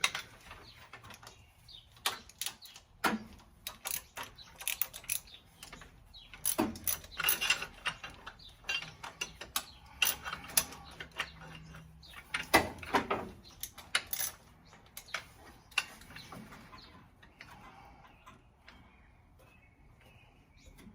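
Hand ratchet clicking and metal tools knocking while bolts are loosened on the front of a Ford 302 V8, in irregular bursts of clicks and clanks that thin out to faint ticks over the last few seconds.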